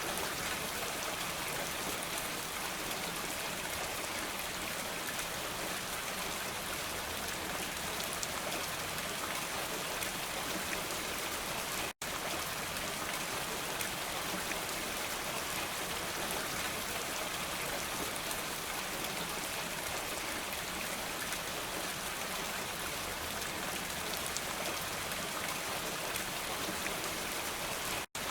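Steady, dense rainfall pattering evenly, with no thunder; the sound cuts out for an instant about twelve seconds in and again near the end.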